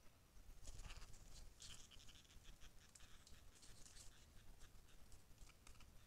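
Faint scratchy rustling and a run of short irregular clicks as a plush-crested jay leaves the leaf litter and flies up to a branch.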